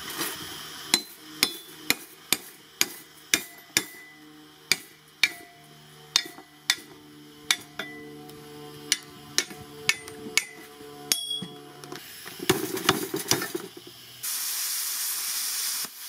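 A hammer striking a plasma-cut steel plate sword piece, about twenty sharp ringing metallic blows at roughly two a second. A quick rattle of hits and metal clatter follows. A steady hiss runs for about two seconds near the end and then cuts off suddenly.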